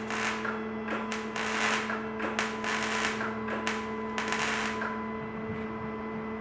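MIG welding arc crackling in a string of short bursts as metal rods are tack-welded, stopping about five seconds in.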